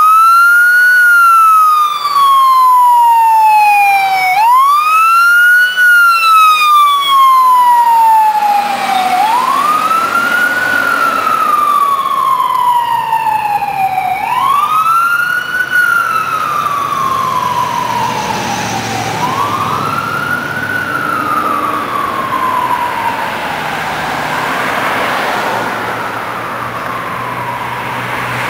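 Emergency vehicle siren wailing in repeated cycles about five seconds apart, each a quick rise then a long slow fall, growing fainter as the vehicle moves off. A low engine rumble comes in underneath about a third of the way through.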